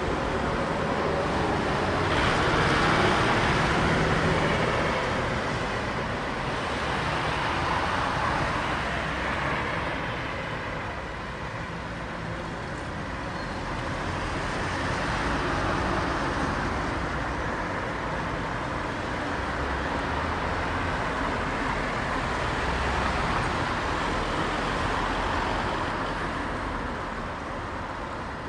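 City street traffic: cars and other vehicles passing one after another, the tyre and engine noise swelling and fading every few seconds.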